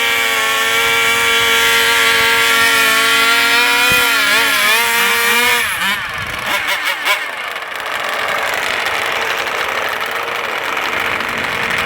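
Small two-stroke gasoline engine of a large-scale RC car held at high, steady revs. Its pitch wavers and drops about four to five seconds in, and it cuts off abruptly near six seconds. A few sharp clicks follow, then a rougher, steadier engine sound.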